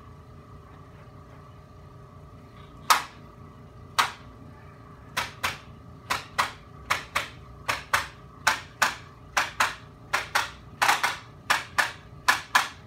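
A run of sharp, loud clicks during a standing chiropractic adjustment: three spaced well apart, then quickening to about two a second, many in close pairs, each with a brief ring.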